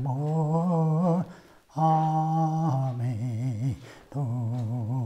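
A man humming a slow, chant-like tune in long held notes, with two short breaks: one about a second in and one near four seconds in.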